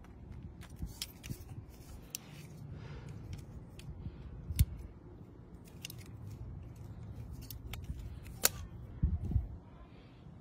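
Multi-tool pliers snipping and clicking on a plastic rod: a scattered series of short, sharp clicks and snips, two of them louder, about halfway through and near the end, over a low background rumble.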